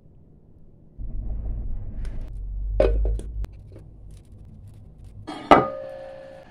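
Cookware being handled: a low rumble with a few light clinks as a metal lid is worked on a pan, then one sharp clink that rings briefly, about five and a half seconds in.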